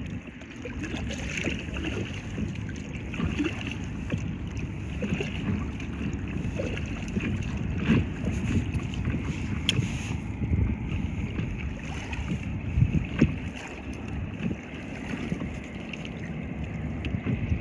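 Wind buffeting the microphone over open water, with small waves slapping and lapping around a paddleboard. An uneven low rumble with scattered small knocks runs under a steady high hiss.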